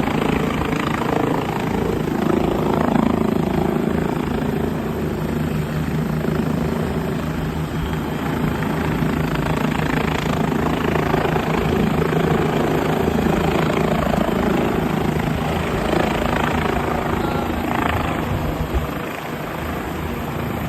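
Helicopter flying overhead: a steady, continuous rotor and engine thrum that eases off slightly near the end.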